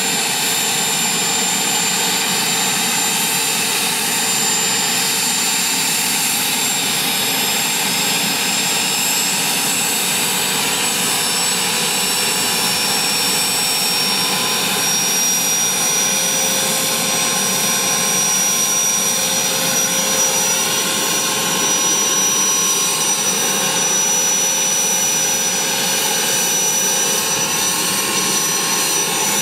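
Turbomeca Astazou turboshaft engine of an Aérospatiale SA-318C Alouette II helicopter running on the ground during startup, a steady loud turbine whine with a high tone that steps up in pitch about halfway through as the main rotor comes up to speed.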